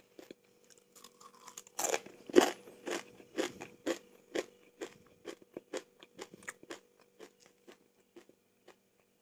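Someone chewing crisp fried durian-seed chips: a loud crunch about two seconds in, then a run of quieter crunches, about two a second, that thin out toward the end.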